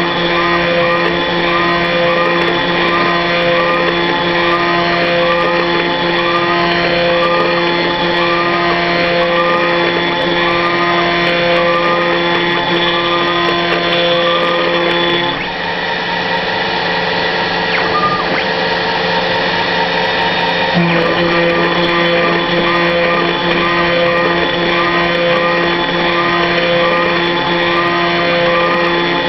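CNC milling machine spindle whining steadily as it cuts a plastic part, with a faint pattern repeating about once a second. About halfway through its tone shifts for some five seconds, then returns to the earlier sound.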